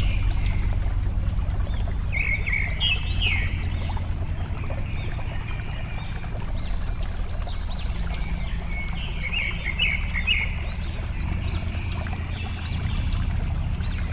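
Flowing water running with a steady low rush, while birds chirp over it with many short, high calls, busiest around two or three seconds in and again around nine to ten seconds in.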